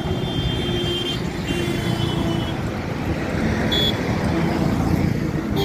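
Road traffic passing close by: a heavy truck and cars, with a steady rumble of engines and tyres. Faint high beeping comes in the first two seconds, and a short high tone about four seconds in.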